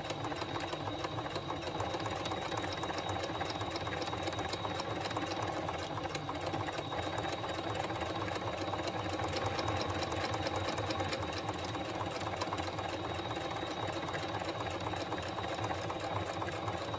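Domestic sewing machine running steadily, stitching a top-stitch seam through four thick layers of a fabric bag handle with an even, rapid rhythm of needle strokes.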